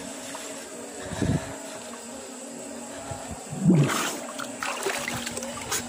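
River water trickling and lapping close to the microphone, with a louder splash a little before four seconds in.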